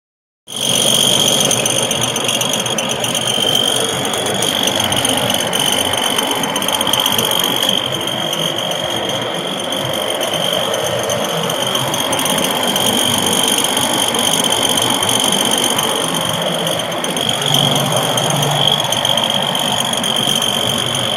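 Ford F-150 pickup running with a steady high-pitched whine over the engine noise; the owner suspects it comes from the transmission.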